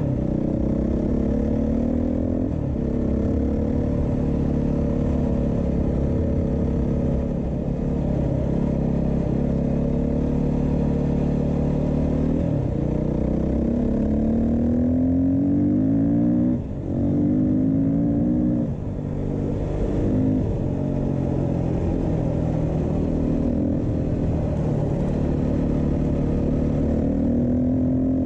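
Beta 390 RR-S single-cylinder four-stroke dirt bike engine under way, its pitch rising and falling as the rider works the throttle and gears, with two brief drops a little past halfway when the throttle closes.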